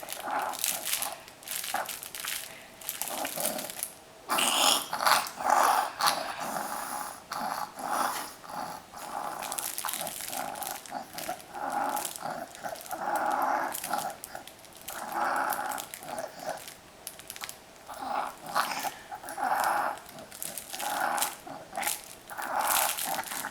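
A five-month-old baby breathing noisily with a wheeze on breath after breath, about one every second or so. The sound of a 'happy wheezer': an infant who wheezes a lot but is otherwise well.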